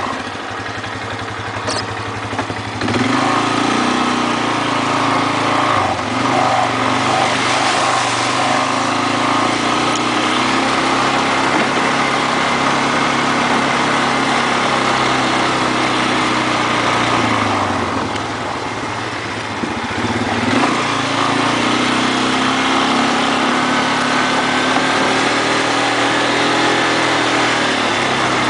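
ATV engine running under way, its revs rising and falling with the throttle, over a broad rushing noise. It gets louder about three seconds in and eases off briefly a little past the middle.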